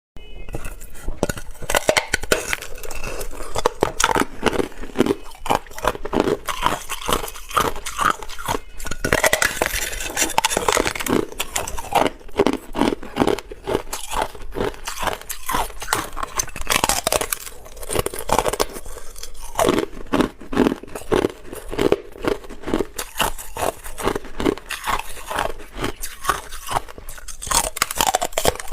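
Hard clear ice being bitten and chewed close to the microphone: a continuous run of crisp crunching and cracking.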